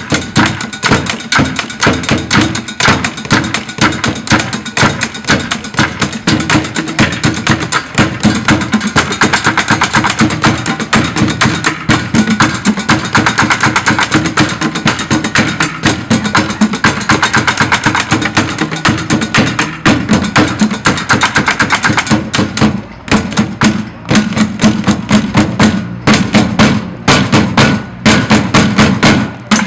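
Drum line playing found-object percussion: sticks beating on pots and pans, plastic buckets and an upturned plastic trash can in a fast, dense, steady rhythm, with a few short breaks in the last several seconds.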